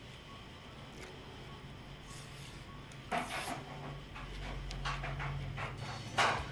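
Spoon scraping across a large plate as fried rice is scooped up: two sharp scrapes, about three seconds in and near the end, with fainter scrapes between.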